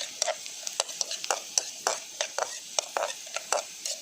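Food frying in oil in a pan, sizzling steadily, while a metal spoon or spatula stirs it with repeated sharp scrapes and taps against the pan, roughly three a second.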